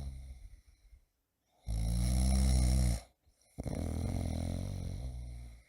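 A person snoring: long, low snores one after another, separated by short gaps of silence. The snore about two seconds in is the loudest.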